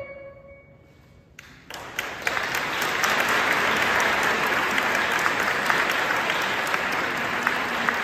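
The last sung note of a women's choir fades away, a brief hush follows, then audience applause starts about a second and a half in and swells to steady clapping.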